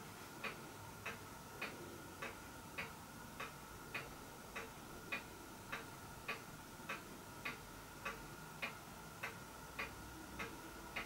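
A clock ticking steadily and faintly, a little under two ticks a second, over a faint steady hum.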